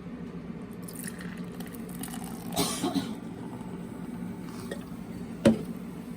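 Carbonated Coca-Cola coffee drink poured into a glass, with a short splashing fizz about halfway through, then a single sharp knock near the end. A steady low hum sits underneath.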